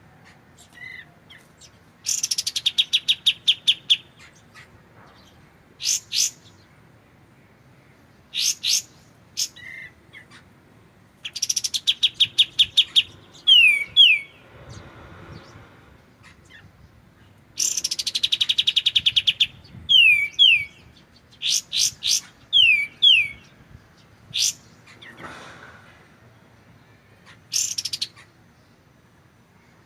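Kapas tembak (katem) songbird singing in clear repeated phrases. Each phrase is a fast machine-gun series of about seven or eight sharp notes a second, followed by quick downslurred whistles, with short single calls and pauses in between.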